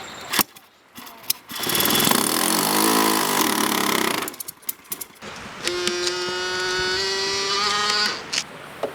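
Saito 100 four-stroke glow engine on a model airplane being started, running in two short bursts of a couple of seconds each that cut off abruptly. The second burst is steadier and slightly rising in pitch.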